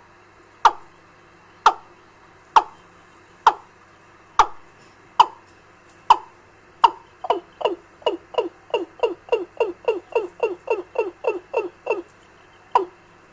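A recorded fowl (gà) call played through a bird-trapping amplifier and its speaker as a lure: short notes, each dropping quickly in pitch, about one a second. From about seven seconds in comes a faster run of about three notes a second, then single notes again near the end.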